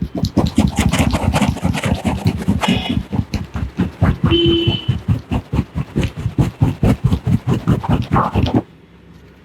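Fast percussive hand massage: a barber's hands striking rhythmically, about seven strikes a second, stopping abruptly near the end.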